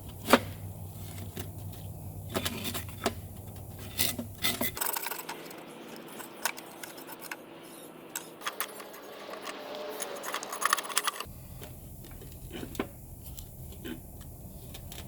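Metal parts of an antique forge blower's gear drive clinking and tapping as they are handled, a scatter of small sharp knocks.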